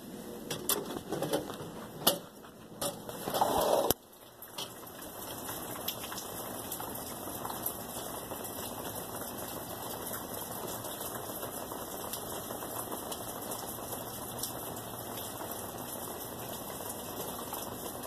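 Steady fine pattering of sleet and wet snow falling around a covered patio, after a few seconds of bumps and clicks from the camera being moved about.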